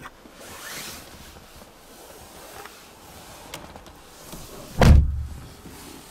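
Car's rear power window motor running with a steady hum for about four and a half seconds, ending in a loud thump.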